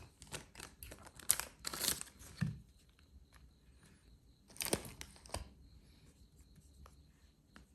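Rustling and crinkling of a lighter being handled, followed a couple of seconds later by two sharp clicks close together.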